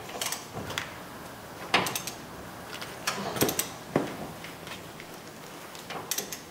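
Hand torque wrench working the tie rod end's castle nut up to 50 foot-pounds: a few scattered short metallic ratchet clicks and knocks with pauses between.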